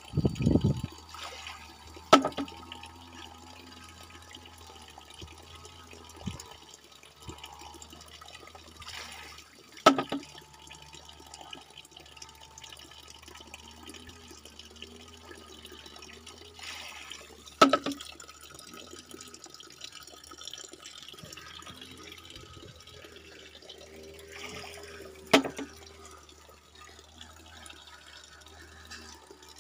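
Bamboo water knocker (pancurendang): water trickles steadily into a pivoted bamboo tube, which tips over when full and strikes the bamboo log beneath with a sharp knock. Four knocks come at even intervals of about seven and a half seconds.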